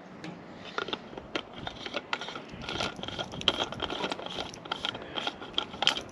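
Rapid, irregular clicking and scraping as a new fuel filter is handled and screwed on hand tight.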